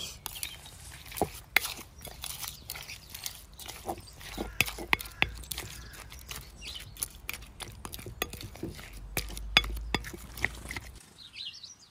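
Salted, steamed lemon pieces being stirred in a glass bowl with a white plastic scraper: irregular clicks and knocks of the scraper and fruit against the glass, stopping about a second before the end.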